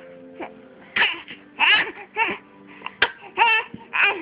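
A young girl's put-on cries: a series of short, whimpering, cough-like vocal sounds, one after another, in a fake cough and cry.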